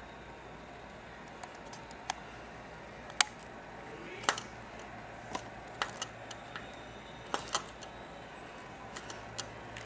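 Irregular small clicks and taps of hard parts being handled as a screw is tightened into an elevator push-button fixture, the sharpest a little over three seconds in.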